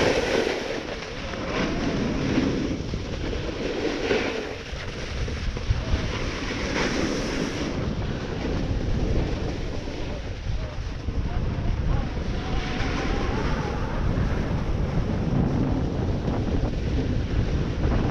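Wind buffeting the microphone over the scrape and hiss of a snowboard sliding across packed snow, swelling every few seconds as the board turns.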